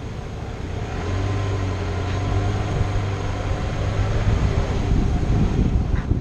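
A car driving slowly, its engine humming and its tyres rolling on pavement. The hum grows louder about a second in, as the car pulls away.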